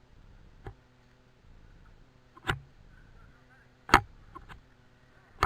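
Airsoft gun firing single shots: three sharp cracks a second or more apart, each louder than the last, followed by a couple of faint ticks.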